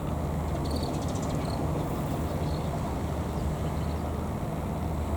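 A vehicle engine running steadily, a low even hum, with a few faint high chirps about a second in.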